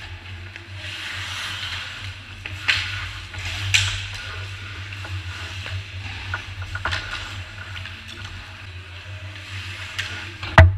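Ice hockey skates scraping and hissing on rink ice, with a few sharp clacks of sticks and puck and one loud knock near the end. A steady low hum runs underneath.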